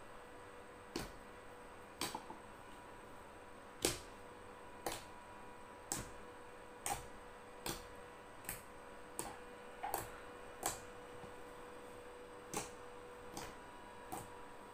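Clear-glue-and-lotion white slime clicking and popping as fingertips poke and press into it, trapping and squeezing out air: sharp, separate pops about once a second, irregularly spaced.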